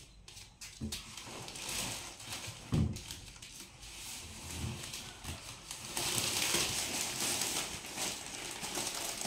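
Crinkling and rustling of a flower bouquet's plastic and paper wrapping as it is handled, louder in the last few seconds, with a few dull thumps, the loudest about three seconds in.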